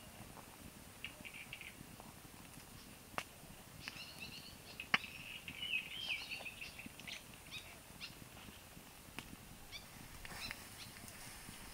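Small birds chirping in short clusters, with a few sharp clicks in between.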